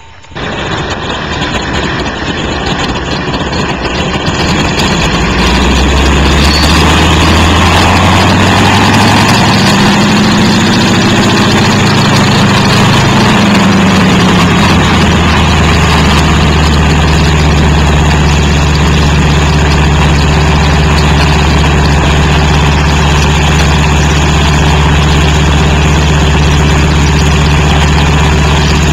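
De Havilland Beaver topdressing plane's engine running on the ground, building up over the first few seconds, rising and falling in pitch briefly around the middle, then idling steadily.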